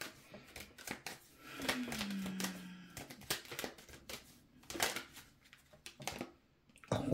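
Tarot cards being shuffled and handled: a run of soft, irregular clicks, snaps and riffles. A brief low tone falls in pitch about two seconds in.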